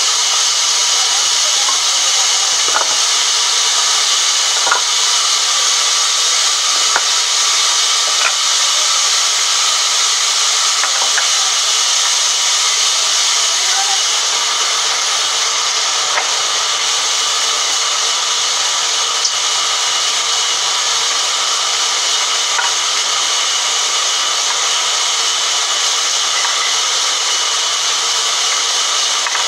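Large vertical band saw running and cutting lengthwise through a log: a loud, steady hiss of the blade in the wood, with a few faint clicks and knocks now and then.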